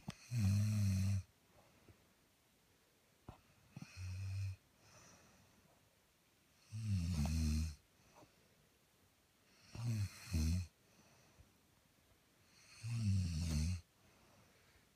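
A woman snoring in her sleep: five snores of about a second each, roughly three seconds apart, the second one weaker than the others.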